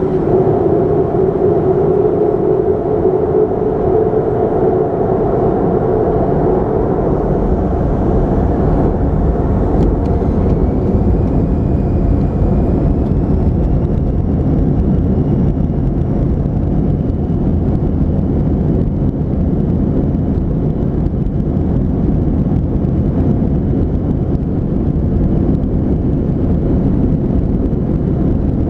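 Cabin noise inside a Boeing 737-300 heard from a window seat: the steady rush of its CFM56 jet engines and airflow. A hum fades over the first several seconds, and a faint rising whine appears about ten seconds in.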